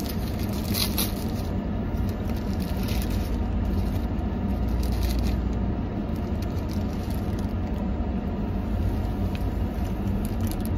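Car engine idling, a steady low rumble heard inside the cabin, with the crinkle of a paper sandwich wrapper being opened now and then.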